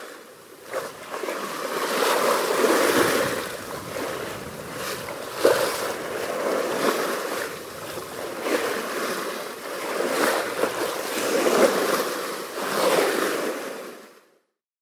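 Ocean waves and rushing water, swelling and easing every couple of seconds. The sound fades out near the end.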